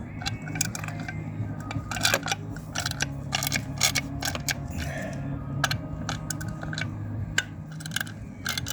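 Irregular metallic clicks and taps of a hand tool fitted with a T15 Torx bit working small screws out of an engine, over a steady low hum.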